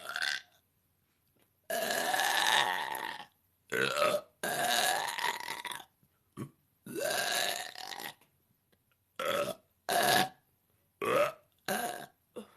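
A woman belching over and over: about ten separate burps with short gaps between them, two long drawn-out ones of about a second and a half early on and the rest short.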